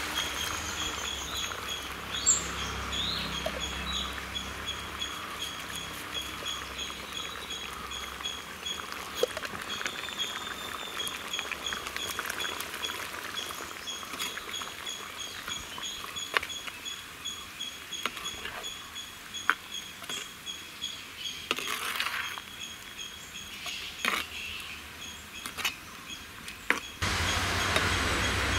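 A metal ladle clinking and scraping now and then against a clay pot as thick curry gravy is stirred, over a fast, evenly repeated high chirping in the background. A louder steady rush of noise comes in near the end.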